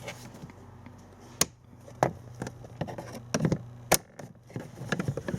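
Sharp plastic clicks and knocks, a handful spread over a few seconds, with rustling and handling in between: a plastic under-dash panel being pushed and pulled free of its push-in clips.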